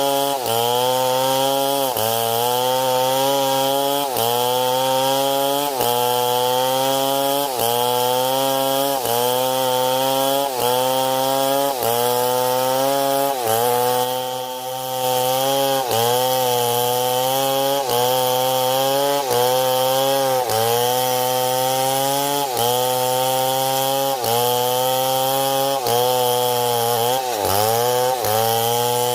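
Stihl MS 070 two-stroke chainsaw running under load in a cut, its engine pitch dipping and recovering about every second and a half, with a deeper drop near the end.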